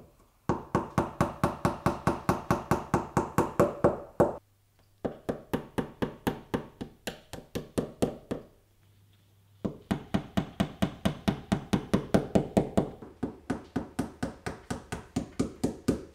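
A small hammer tapping a nail into a wall in quick, even strokes, about four a second, in three runs with two short pauses between them.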